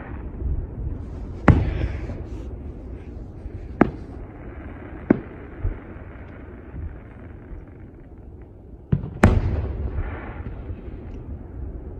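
Aerial fireworks shells bursting overhead: about six sharp bangs spread unevenly, two of them close together about three quarters of the way through, each followed by a lingering echo.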